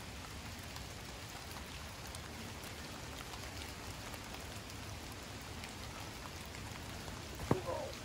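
Steady patter of light rain falling and dripping in woodland. A single sharp click comes near the end.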